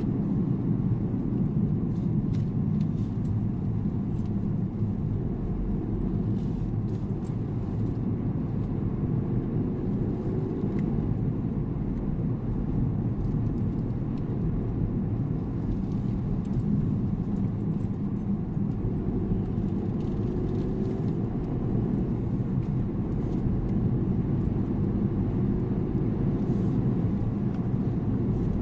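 Steady rumble of a car driving on a narrow gravel road, tyre and road noise heard from inside the cabin, with occasional faint ticks.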